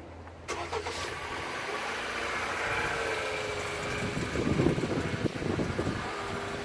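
Car engine started by remote start: a short crank that catches about half a second in, then the engine running at idle, a little louder for a moment about four seconds in.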